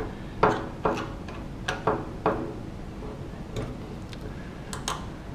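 Small metallic clicks and taps, about eight at irregular intervals, as an Allen key turns the adjustable screws of a Franke tap brace against its metal frame under a stainless steel sink.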